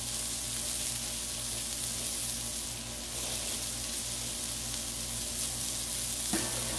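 Balls of ground beef for smash burgers sizzling on a hot Blackstone flat-top griddle, a steady hiss of searing meat.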